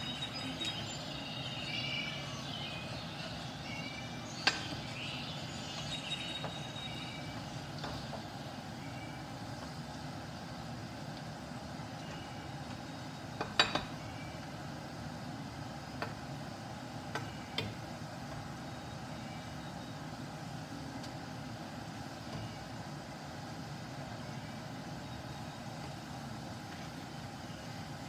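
Potato fries frying in hot oil in a steel pan with a steady sizzle, broken by several sharp clinks of a metal slotted spoon against the pan, the loudest about thirteen and a half seconds in.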